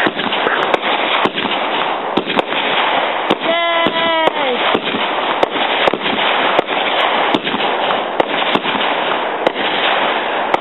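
Consumer aerial fireworks bursting overhead in a dense, continuous crackle of many sharp pops. About three and a half seconds in, a short pitched tone sounds briefly and falls at its end.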